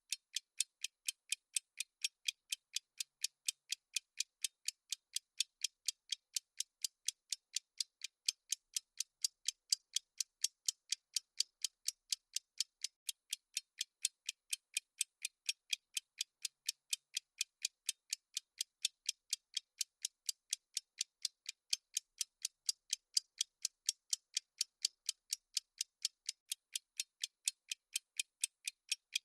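Clock-ticking sound effect of a countdown timer: a steady run of short, high, dry ticks, a few each second, evenly spaced.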